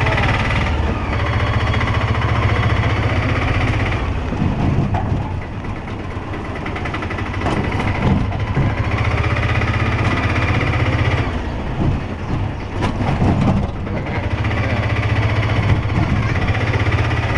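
Auto-rickshaw (tuk-tuk) engine running as it drives, heard from inside the open passenger cab. The steady low drone eases off about four seconds in and again near twelve seconds, then picks back up.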